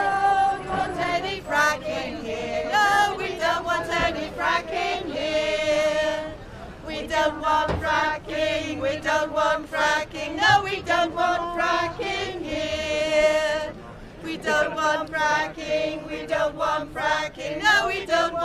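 A group of mostly women's voices singing an anti-fracking protest song together, unaccompanied, with notes held at the ends of lines and short breaks between phrases.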